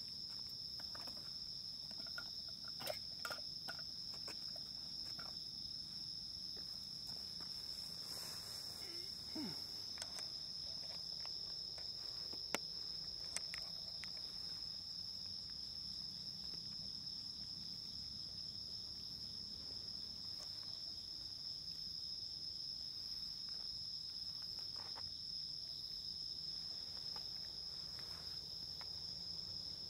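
Crickets trilling in one steady, unbroken high note, with a few faint scattered clicks.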